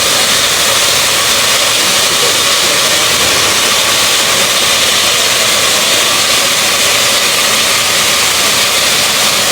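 Steam locomotive 60163 'Tornado', an A1 Peppercorn Pacific, letting off steam in a loud, steady hiss.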